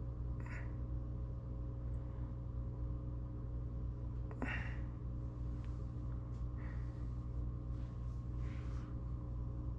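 A steady low electrical hum, with a few short breaths through the nose on top of it. There are four breaths, and the one about four and a half seconds in is the loudest.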